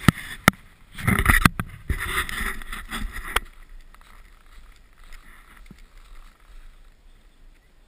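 Knocks, taps and rubbing of an action camera being handled and set in place for about the first three and a half seconds, then a much quieter steady hiss.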